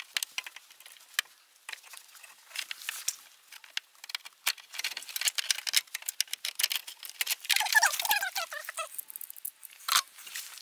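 Hands working at heater hose connections in a car's engine bay: scattered clicks, taps and rustling, with a brief wavering squeak about eight seconds in and a sharper knock near the end.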